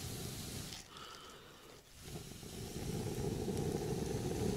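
Someone blowing on a small fire lit in the hollow of a dead tree trunk to get it going: a long breathy blow that stops about a second in, then after a short pause a second long blow.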